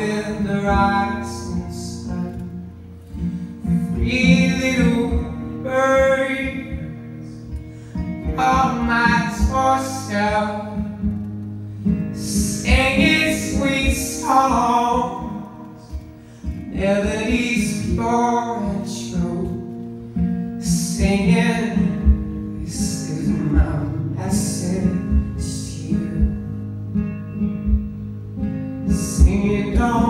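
A man singing in phrases with a few seconds between them, accompanied by his own strummed acoustic guitar.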